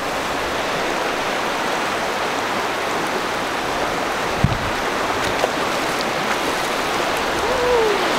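Shallow river rushing over rock riffles, a steady water noise, with a brief low thump about halfway through.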